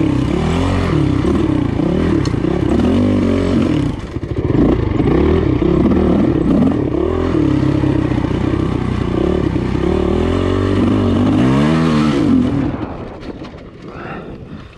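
Dirt bike engine being ridden hard, its revs rising and falling constantly with the throttle. It dips briefly about four seconds in, and near the end it revs up once, then falls away as the bike slows.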